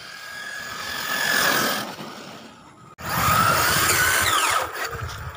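Brushless electric motor of a 1/10 ZD Racing RC stadium truck whining as the truck drives on pavement, growing louder as it approaches. The sound cuts off abruptly, then the whine returns louder, with a higher whine falling in pitch near the end.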